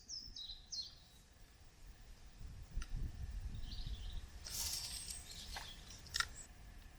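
Small birds chirping: a quick run of high notes stepping down in pitch at the start, then scattered high chirps, over a low rumble, with a few faint clicks.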